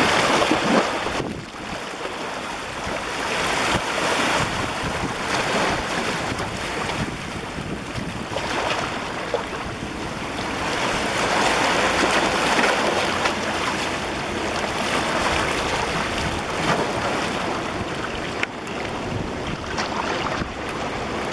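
Ocean waves breaking and washing on a beach, the surf rising and falling in slow swells every few seconds, with wind buffeting the microphone.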